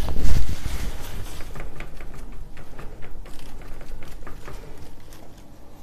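Oil-paint brush working on canvas: short, irregular scratching and tapping strokes of the bristles, with a louder low bump in the first half second.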